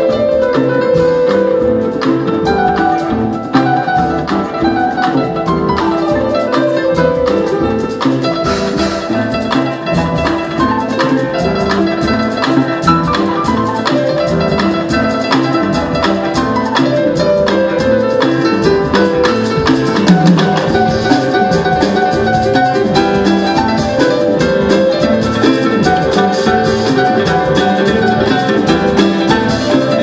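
Live jazz ensemble playing: a kanun's plucked notes over a grand piano and an oud, with drums keeping time.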